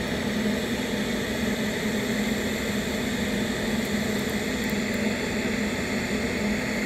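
TIG welding arc on 316 stainless steel tube, a steady hiss and hum as short pieces of filler wire are melted down inside a drilled hole.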